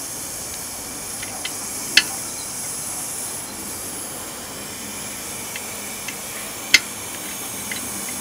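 A few sharp clicks, the loudest about two seconds in and again near seven seconds, as fingers handle the washers and nut on a new trailer wheel stud, over a steady hiss.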